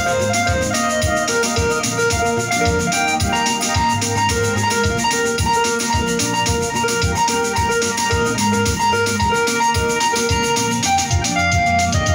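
Electronic keyboard playing a praise melody with organ- and piano-like voices over its built-in drum rhythm, a steady beat throughout.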